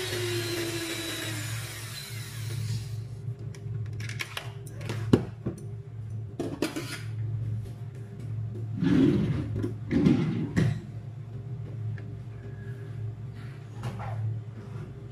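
Russell Hobbs electric hand mixer beating batter in a stainless steel bowl, its pitch falling before it switches off about three seconds in. Then scattered knocks and scrapes of the mixer being set down and a spatula working in the metal bowl, loudest near the middle.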